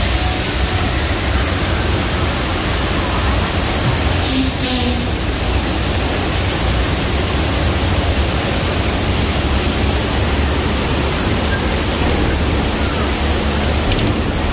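Staged flood effect: a loud, steady rush of water surging through a subway set, over a deep rumble.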